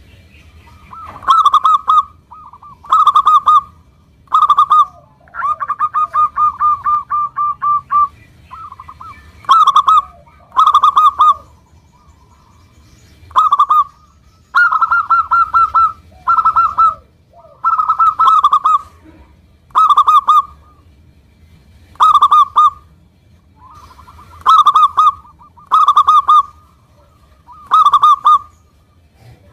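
Zebra dove (perkutut) singing loudly: short phrases of rapid, staccato coos, one every second or two, with a longer run of about ten evenly spaced coos a few seconds in.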